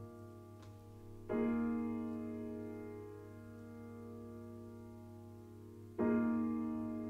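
Grand piano chord struck twice, about five seconds apart, each left to ring and fade slowly, over a low steady hum.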